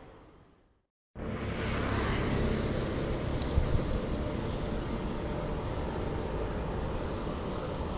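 Wind rumble on the camera microphone and road noise while cycling along a city road, with light traffic. The sound fades out and cuts back in about a second in, and two short clicks come close together a little before the middle.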